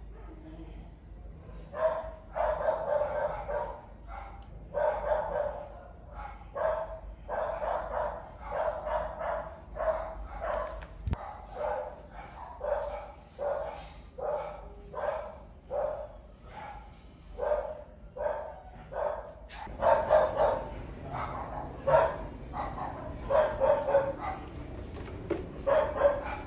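A dog barking repeatedly in quick runs of barks, with short gaps between runs; the barks get louder about twenty seconds in.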